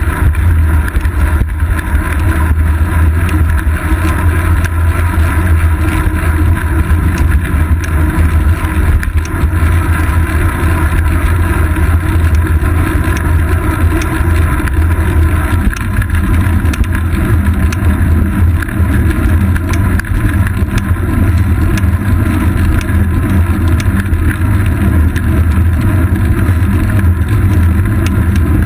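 Steady wind rush and deep road rumble from a bicycle riding along a paved road, heard through a camera mounted on the bike's seat post: wind on the microphone and tyre and frame vibration.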